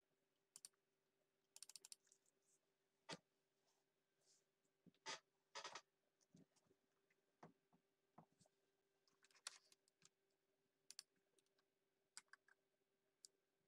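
Faint, scattered clicks and taps of a computer keyboard and mouse, some single and some in quick little runs, over a faint steady hum.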